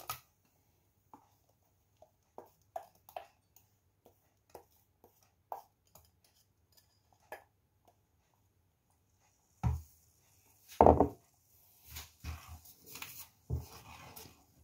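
A wooden spoon taps and scrapes against a glass bowl in scattered short clicks, emptying the blended potato mixture into a saucepan. From about two-thirds of the way in come louder knocks and scraping as the spoon stirs the mixture in the pan.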